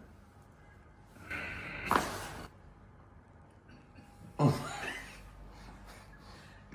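A patient's gasp and short cry during a chiropractic adjustment: two sudden vocal outbursts about two and a half seconds apart, the second falling sharply in pitch.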